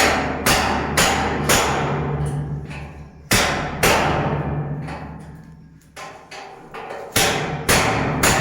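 Hammer blows striking steel, each one ringing out, coming in runs about half a second apart with pauses between the runs.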